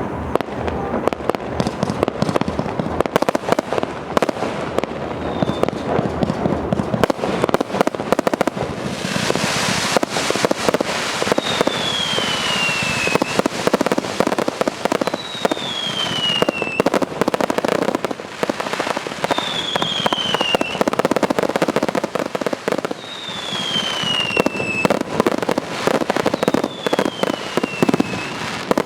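A 288-shot firework cake firing continuously: rapid volleys of launches and bursting shells, one after another. From about a third of the way in, a falling whistle comes roughly every four seconds over the shots.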